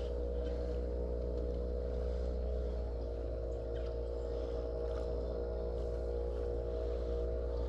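A boat's motor running with a steady, even hum.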